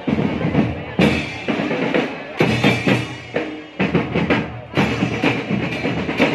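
Marching drumline playing a driving rhythm on bass drums and snare drums, with repeated strikes and short breaks in the beat.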